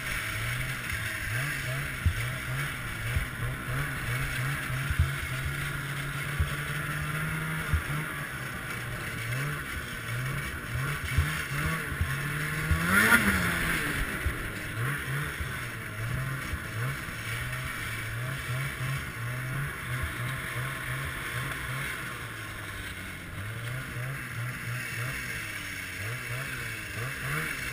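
2014 Ski-Doo Summit X snowmobile's two-stroke engine running under way, its pitch rising and falling with the throttle, with one brief rev about halfway through. A steady hiss of track and wind goes under it, with short knocks here and there.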